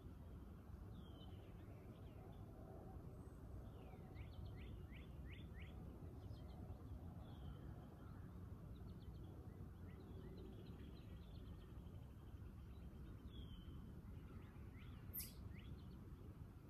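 Near-silent ambience: a faint steady low rumble with scattered songbird chirps, including a quick run of short down-slurred notes about four to five seconds in. There is a brief sharp click near the end.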